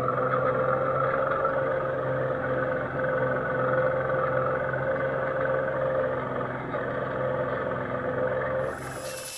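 Electric-converted Massey Ferguson 35 tractor's repurposed forklift motor and transmission running with a steady whine under load while pulling a two-bottom plow. Near the end the sound cuts abruptly to a quieter hiss with a thin high whistle.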